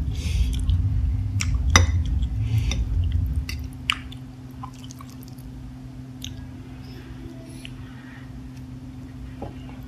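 A person slurping and chewing spicy noodles close to the microphone. A loud slurp with a low rumble lasts about three and a half seconds, then softer wet chewing and mouth clicks follow. A steady low hum runs underneath.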